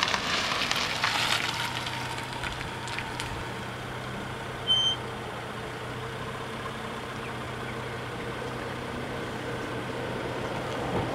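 A car's engine idling steadily, with a short, high-pitched beep about five seconds in.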